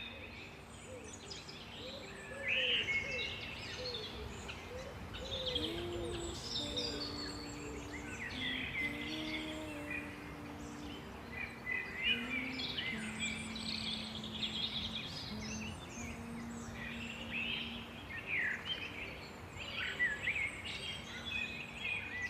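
Many small songbirds chirping and singing in forest, over a soft ambient-music background of long held low notes.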